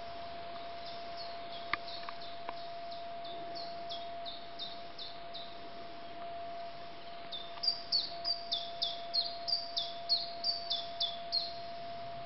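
A small songbird singing in the forest: a run of short, high chirps, each falling in pitch. A faint run comes in the first half, then a louder run of about a dozen notes, roughly three a second, in the second half.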